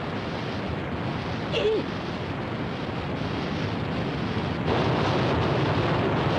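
Animated sound effect of a fast river rushing through a gorge: a steady rush of water that grows louder and fuller about two-thirds of the way through. A brief strained voice sound comes about a second and a half in.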